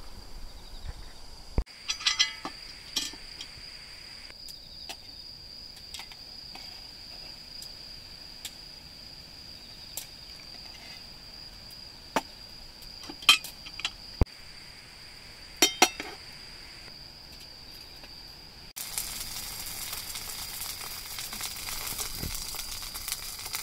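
Metal camp cookware clinking as a brass alcohol burner and a metal pan stand are handled, several sharp clinks, over a steady high insect chirring. In the last few seconds, an okonomiyaki sizzling in a frying pan.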